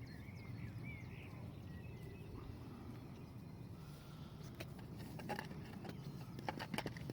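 Magnet-fishing gear being handled: a run of sharp clicks and knocks starting a little past halfway and coming faster near the end, as a second magnet is fixed onto the rope. Faint bird chirps come early, over a low outdoor rumble.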